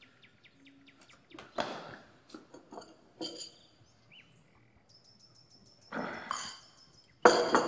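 A man getting up from a wooden chair and walking across the room: scattered knocks and shuffles, the loudest near the end. A bird chirps faintly and high in the background in the second half.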